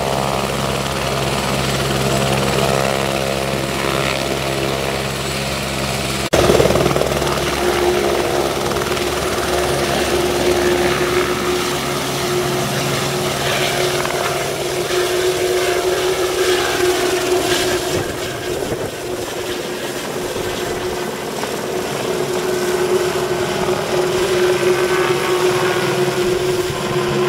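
Eurocopter AS350 A-Star air ambulance helicopter, its turbine and rotor running on the ground and then lifting off and climbing away overhead. The sound jumps suddenly in loudness about six seconds in, and a steady whine runs through the rest.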